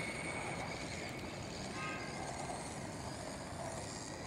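Battery-powered RC cars running at a distance: a faint electric whine over a steady hiss, with a brief higher whine about two seconds in.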